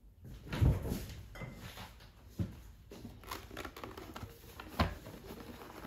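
Hands handling a cardboard box on a tabletop: three dull knocks, the loudest about half a second in, with light rubbing and scraping of the cardboard between them.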